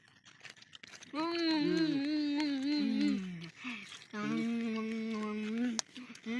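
Faint crinkling and clicking of eating for about a second, then a voice singing long, wavering held notes in two phrases with a short break between them.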